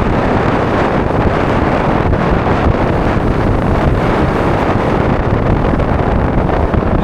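Strong wind buffeting the microphone: a loud, steady rumbling noise that masks everything else.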